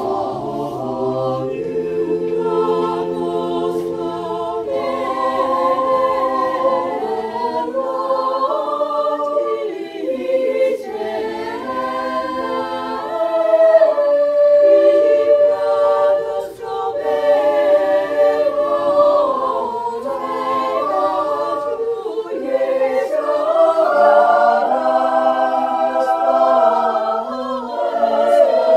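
A mixed choir of children and adults singing unaccompanied in several parts, holding long chords, with brief breaks between phrases about ten and sixteen seconds in.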